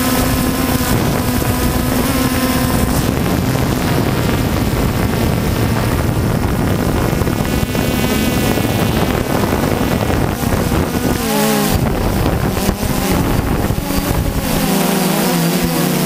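DJI Phantom 2 quadcopter's motors and propellers buzzing steadily, heard close up from the GoPro mounted on the drone, with wind on the microphone. The motor pitch wavers about 11 seconds in and shifts again near the end as the drone manoeuvres.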